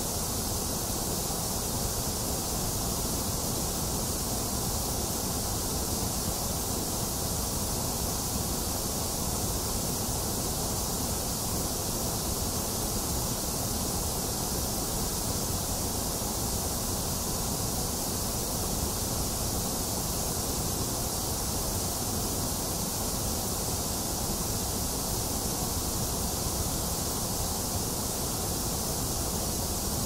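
Steady white noise: an even, unchanging hiss with no drops or other events, its high hiss and low rumble stronger than the middle.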